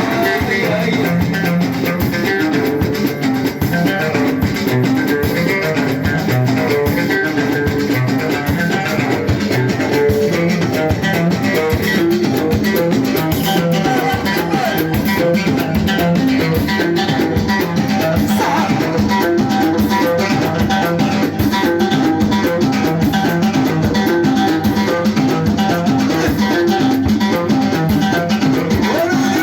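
Moroccan chaabi band music: plucked strings over a steady drum beat, without singing.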